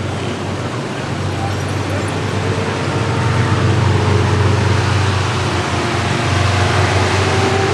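Street traffic: a steady low engine drone over road noise, swelling slightly a few seconds in.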